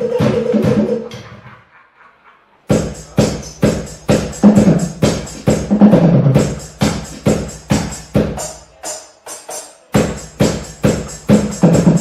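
Electronic drum kit being played through its sound module. A run of hits fades out about a second and a half in, and after a short pause a fast pattern of strikes starts up and carries on, dipping briefly near the end before picking up again.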